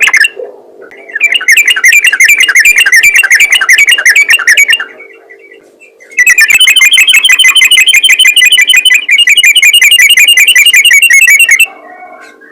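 Sooty-headed bulbul (trucukan) singing its 'ropel' song: long, fast runs of rapidly repeated notes. There are two loud bouts, the second about five seconds long.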